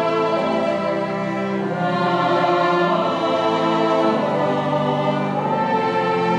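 Classical sacred-style music: a choir singing slow, held chords over a small string ensemble, the harmony shifting a couple of times.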